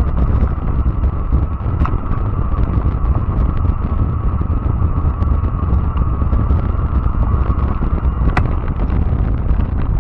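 Fat-tire electric bike riding along a trail: wind buffeting the microphone and tyre rumble, over a steady whine from the electric motor. A few sharp ticks cut through, the clearest near the end.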